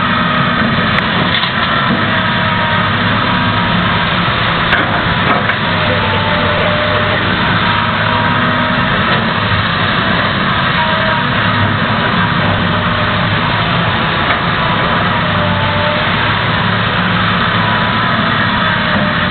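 Diesel engines of backhoes running steadily: a loud, constant engine drone with a low hum.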